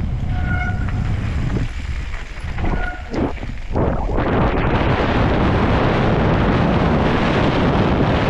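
Wind buffeting a helmet-mounted microphone over mountain bike tyres rolling on a dirt trail, with two short high squeals in the first three seconds. The rush drops off about two seconds in and comes back louder and steady from about four seconds.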